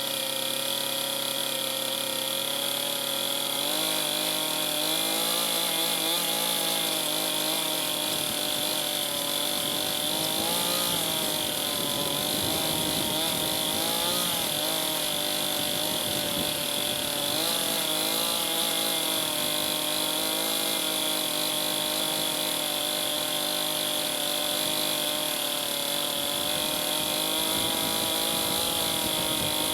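Two-stroke chainsaw running steadily without a break, its engine speed wavering a little as it cuts into a log along a scribe line.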